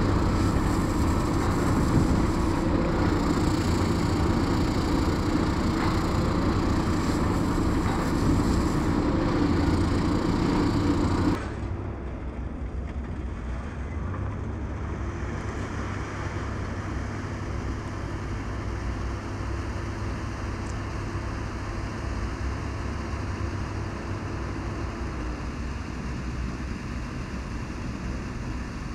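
Heavy construction machinery at a stone-column rig running with a steady engine drone and a held hum. About eleven seconds in it drops suddenly to a quieter, more distant machinery rumble.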